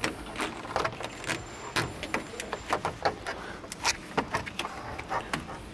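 Irregular clicking, rattling and rustling of corrugated plastic conduit over transmission cooler lines as it is pulled and tucked into place against the plastic radiator support and shroud.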